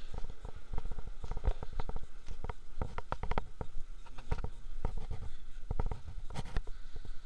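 Irregular knocks, bumps and rubbing from a handheld camera being moved and swung about: handling noise on its microphone.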